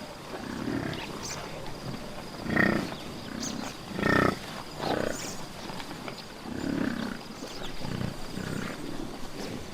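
Buffalo grunting and snorting: a run of short, low grunts roughly one to two seconds apart, the two loudest a little before the middle.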